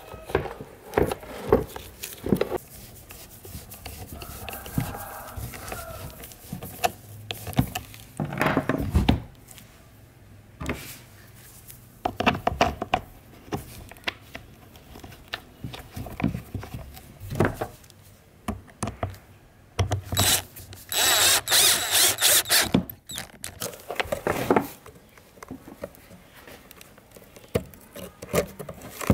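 Hands taking apart an old electric fan's plastic and metal parts: scattered clicks, knocks and rubbing, with a loud hissing scrub lasting about four seconds some two-thirds of the way through.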